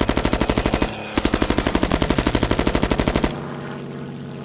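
Machine gun fire in two long rapid bursts, about a dozen rounds a second, with a brief pause about a second in, cutting off about three seconds in. A steady propeller aircraft engine drone carries on after the firing stops.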